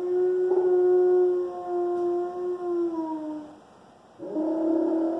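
Alaskan Malamute howling: one long howl held at an even pitch, dropping slightly as it trails off, then a second howl begins about four seconds in.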